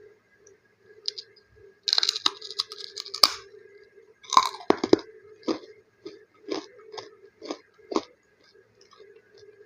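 Crispy snack being crunched and chewed close to the microphone: a dense run of crackling crunches about two seconds in, a few loud crunches around the middle, then steady chewing crunches about twice a second that thin out near the end. A faint steady hum lies underneath.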